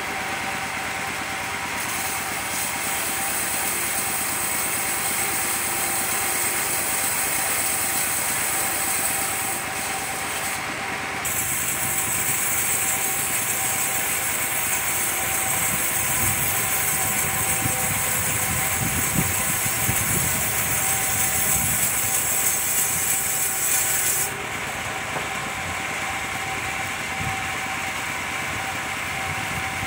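Circular sawmill ripping coconut-wood boards: the blade and its motor run with a steady whine, and a harsh high hiss rises while the blade is in the wood. The hiss breaks off briefly about ten seconds in and stops about 24 seconds in, leaving the saw running free.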